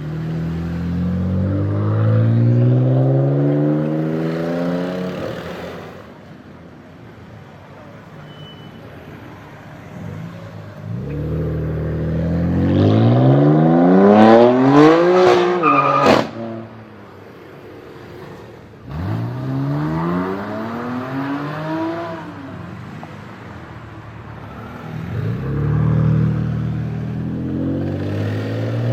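BMW M4 F82's twin-turbo straight-six through a loud Fi aftermarket exhaust, revving up in several long pulls that rise in pitch. The loudest pull, about halfway through, climbs highest with a few sharp cracks and cuts off suddenly.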